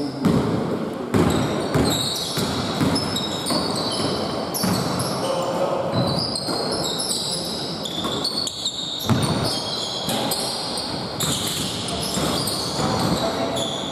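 Basketball game on a hardwood court: the ball bouncing, a knock every second or so, with short high squeaks of sneakers on the floor and players' voices calling out.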